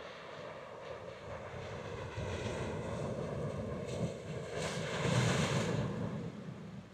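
Rumble of a passing engine, building up to its loudest about five seconds in and then dropping away.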